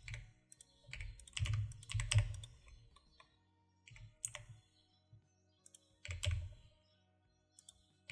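Computer keyboard keystrokes in short clusters a second or two apart, each tap with a dull knock on the desk beneath it, and near-quiet pauses between the clusters.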